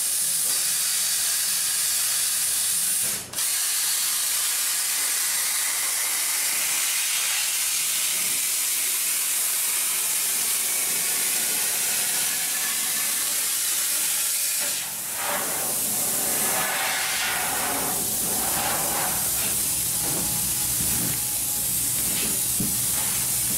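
Hypertherm Powermax45 plasma cutter running, a steady loud hiss of air and arc as the torch cuts through the sheet-steel quarter panel, with a brief break about three seconds in. From about halfway through, the hiss turns rougher and more uneven.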